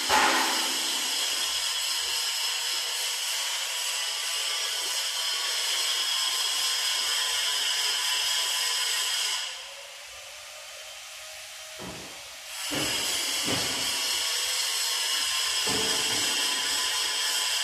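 A steady mechanical hiss with a high whine on top. It drops away for about three seconds midway, with a couple of knocks, then starts again at the same level.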